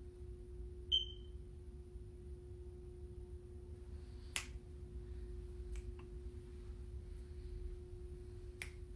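Faint room tone with a steady low hum, a short high ping about a second in, and a few sharp clicks later on.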